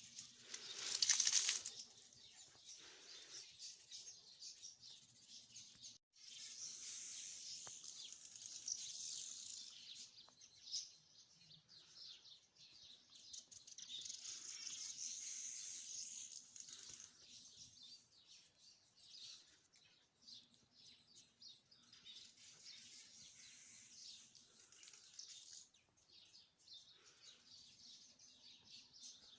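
Small birds chirping and twittering in dense, high stretches that come and go. There is a short, loud rustling burst about a second in.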